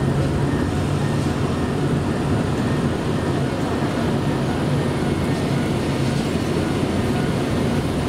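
JR Kyushu KiHa 125 diesel railcar standing at the platform with its engine idling: a steady low diesel hum.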